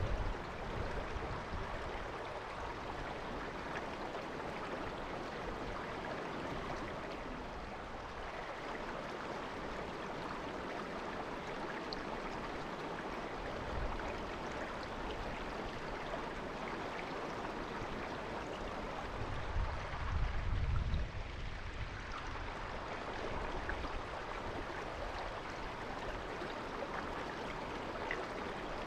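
Shallow river babbling, a steady rush of flowing water. A brief low rumble comes about two-thirds of the way through.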